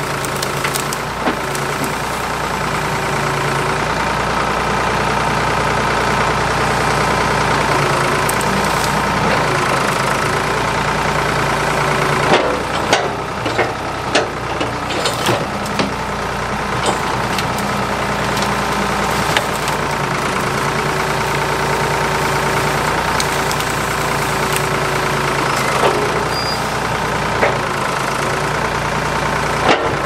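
Ford 555 backhoe's engine running steadily while the bucket and thumb work brush, with sharp knocks and cracks from about twelve seconds in and again near the end.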